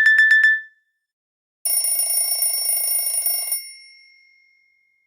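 Nokia 5330 XpressMusic phone alert tones. A rapid high-pitched electronic beeping, about nine beeps a second, stops about half a second in. After a short gap a second alert tone sounds: a bright, ringing electronic chime that holds for about two seconds and then fades away.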